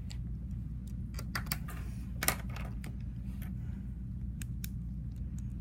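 Irregular light clicks and taps, the clearest a little past two seconds in, over a steady low hum.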